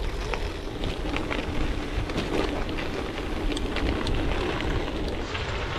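Gravel bike tyres rolling over a dry gravel track: a steady crunch with a dense crackle of small stones ticking under the wheels, over a low rumble of wind on the microphone.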